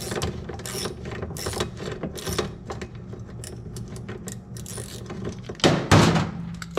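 Socket ratchet clicking in short strokes as a mounting bolt is backed out of a washing machine's actuator. A louder clatter comes near the end.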